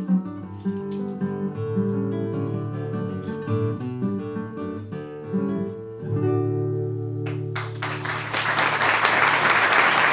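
Classical guitar played solo, single plucked notes over bass notes, closing on a long held final chord about six seconds in. Audience applause breaks out about a second later and grows to the loudest sound.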